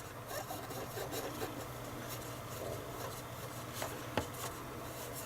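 Cotton bud rubbed back and forth over the print head of a Zebra LP2844 thermal label printer: a faint scrubbing, with a couple of small clicks near the end.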